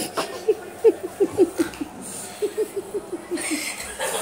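A person laughing hard in a long run of quick, short 'ha' bursts, about five a second, breaking off briefly near the end.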